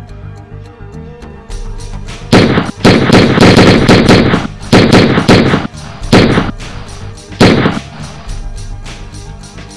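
Rapid handgun gunfire in about five loud bursts, the longest over a second, starting about two seconds in, over a music score with a steady ticking beat.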